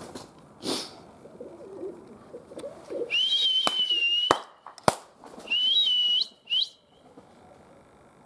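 A person whistling two long, steady whistles of about a second each, the second ending with a short upward flick, with two sharp clicks between them.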